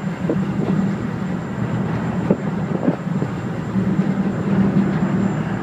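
Ferry engine droning steadily, with a few scattered knocks and rattles.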